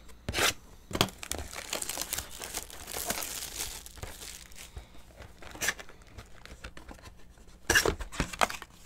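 Plastic wrapping being torn and crinkled off a box of trading cards, in irregular crackling bursts with short pauses between them.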